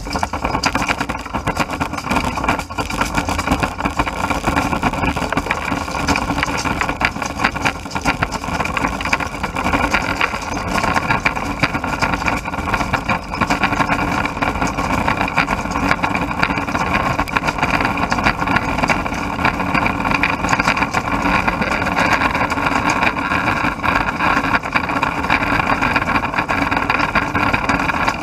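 A-series slow-speed plastic granulator grinding glass-filled nylon parts: a steady machine drone with a dense, continuous crackle and clatter of hard plastic being cut and tumbled by the rotor.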